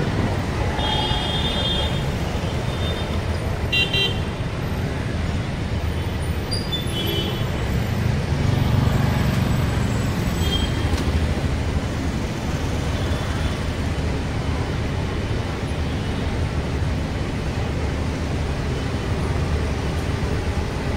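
City bus running through traffic with a steady low engine and road rumble. Short horn toots sound about a second in, around four seconds and around seven seconds.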